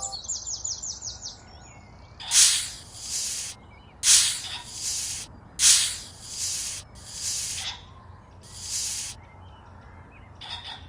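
A series of five short hissing sprays, each about a second long, coming roughly every one and a half seconds.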